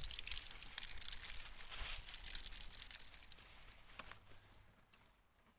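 Wet washing being handled and wrung out by hand over a twin tub washing machine: crackly rustling of soaked fabric with water splashing and dripping, fading out about four and a half seconds in.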